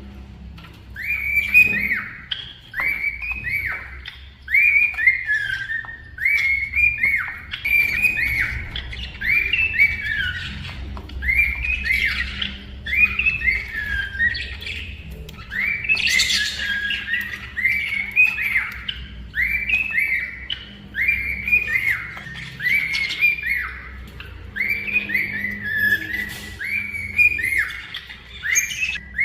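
A cockatiel calling over and over: a short, falling whistled note repeated about once or twice a second, with a louder, harsher squawk about halfway through.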